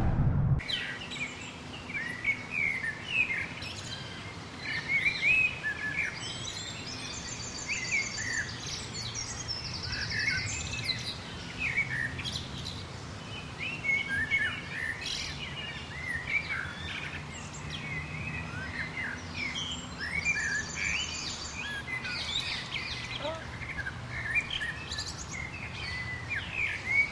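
Garden birds chirping and singing in many short, quick calls, with a few high buzzy trills, over a steady low background hum.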